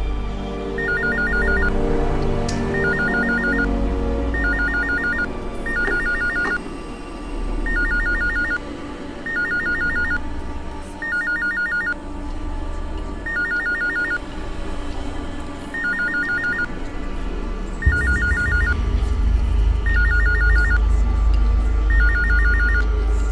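Nokia mobile phone ringing: an electronic ring of short trills of rapid beeps, repeating about every second and a half, over background music that grows louder near the end.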